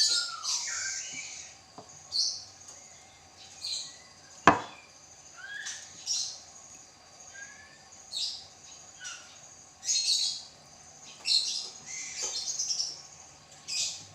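Birds chirping in short, high bursts with a few brief gliding notes every second or two, and a single sharp click about four and a half seconds in.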